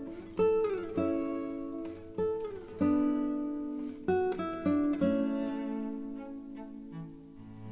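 Background music: a plucked acoustic guitar playing single notes and chords, with a few notes sliding down in pitch. No chainsaw is heard.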